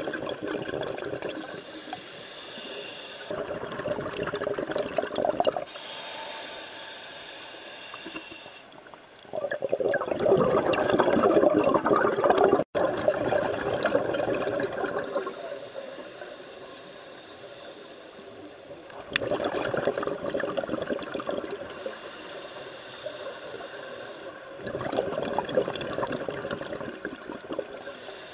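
Scuba diver breathing through a regulator underwater: a hissing inhalation with a faint whistle alternates with a burst of bubbling exhalation, in a slow rhythm of about five breaths. The longest and loudest exhalation comes in the middle.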